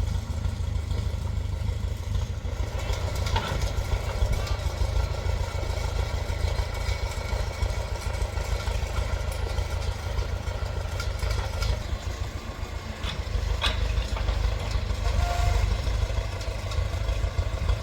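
Engine of an old Case 580CK backhoe running steadily, a continuous low rumble.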